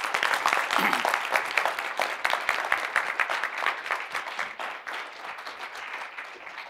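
Audience applauding, a dense patter of many hands clapping that eases off toward the end.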